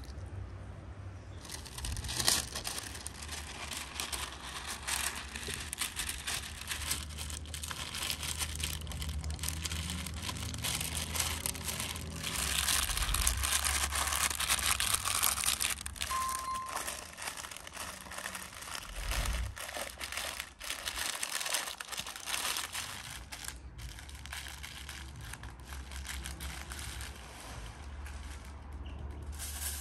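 Paper crinkling and crackling as gloved hands fold and press it around a whole salt-coated trout, with a steady low hum beneath.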